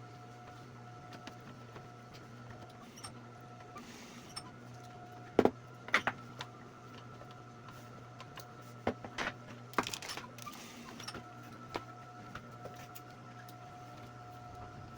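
A steady low hum with a faint whine that comes and goes, broken by a few sharp clicks and knocks: two loud ones about five and a half and six seconds in, and a cluster around nine to ten seconds.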